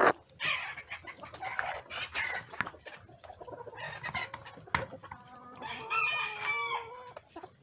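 Bantam chickens clucking and calling, with a bantam rooster crowing once for over a second near the end.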